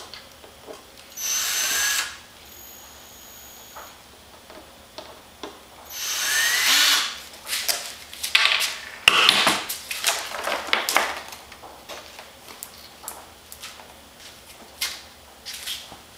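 Cordless drill running in two short bursts, each about a second long with a rising whine, about a second in and again about six seconds in, backing out the bolts that hold the RC plane's wing on. A run of knocks and rattles follows, the loudest around nine seconds in.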